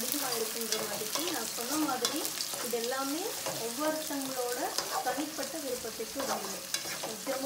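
A wooden spatula stirs and scrapes sliced onions, curry leaves and green chillies frying in hot oil in a metal kadai, in repeated strokes about two to three a second, over a steady sizzle with scattered crackles.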